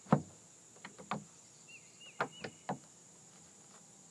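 Several sharp knocks and clicks, the loudest right at the start and a quick cluster about two seconds in. Behind them are a faint, repeating three-note chirp and a steady high-pitched hum.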